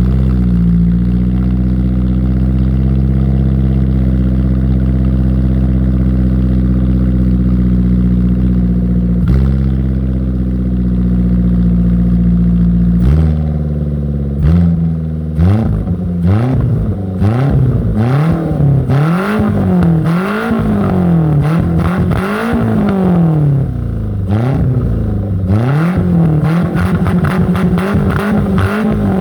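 Kei car engine running loud through a one-off exhaust with an RS-R mini silencer. It holds a steady raised idle, drops to a lower idle about thirteen seconds in, then is revved repeatedly, about one rev every one and a half to two seconds.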